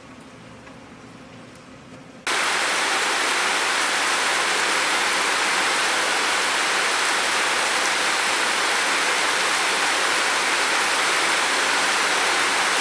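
Rain: a fainter rain ambience for about two seconds, then an abrupt cut to loud, steady, heavy rainfall.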